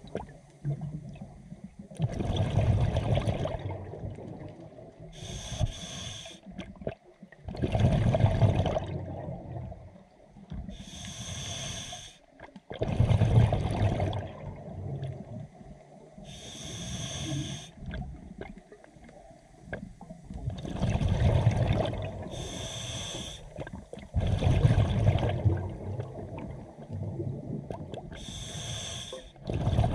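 Scuba diver breathing through an open-circuit regulator underwater. Each breath is a short hiss as the demand valve delivers air, followed by a louder, longer rush of exhaled bubbles, repeating about every five to six seconds, five times over.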